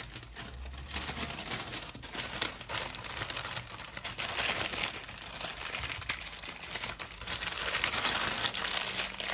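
Greaseproof paper crinkling and rustling as hands fold and wrap it into a parcel, a steady run of small crackles.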